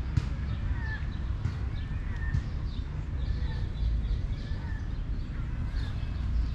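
Small birds chirping in short, scattered calls over a steady low rumble, with one sharp click about a second in.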